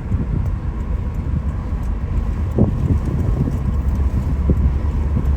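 Steady low road and engine rumble inside a moving car's cabin, with wind noise and a few soft thumps from the road.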